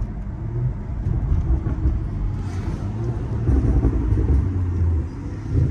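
Straight-piped BMW's exhaust running with a deep, low note as the car pulls through a turn. It grows louder about three and a half seconds in as the car accelerates, then eases off near the end.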